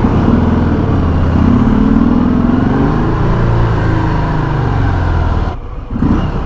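Stock Harley-Davidson Sport Glide's Milwaukee-Eight 107 V-twin engine and stock exhaust under way. The engine note rises over the first couple of seconds, then holds and eases. It cuts out sharply and briefly near the end, then picks up again.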